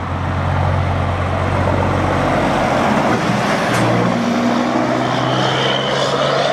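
Heavy truck engine running steadily, its pitch rising a little about four seconds in.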